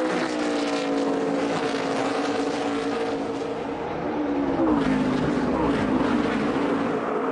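NASCAR Nationwide Series stock car V8 engines running at race speed. Their pitch holds steady, dips about four and a half seconds in, then climbs again as the cars accelerate.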